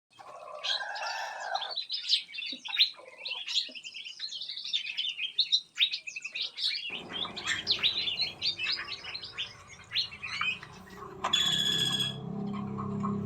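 Many small aviary birds chirping and trilling at once, a dense chatter of quick overlapping calls. About seven seconds in, a low steady hum joins, and near the end one louder, buzzy call stands out for under a second.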